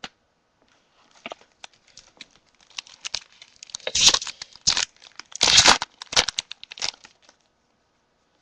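Foil wrapper of a baseball card pack being torn open and crinkled by hand, a run of scratchy crackles with two louder rips in the middle, stopping about a second before the end.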